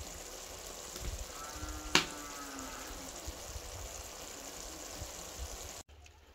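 Pot of potato curry simmering on the stove, a steady bubbling hiss, with one sharp click about two seconds in and a brief wavering call in the background around it. The sound cuts off abruptly near the end.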